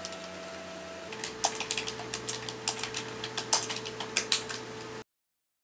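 Computer keyboard typing: a quick, irregular run of keystrokes over a faint steady hum, cutting off abruptly to dead silence near the end.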